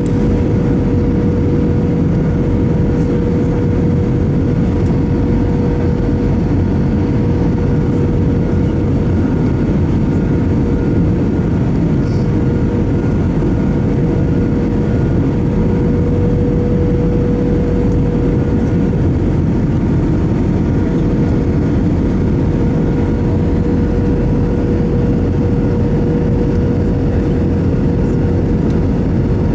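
Airbus A319 cabin noise at a window seat over the wing in flight: a steady, loud roar of engines and rushing air, with a constant mid-pitched hum running through it.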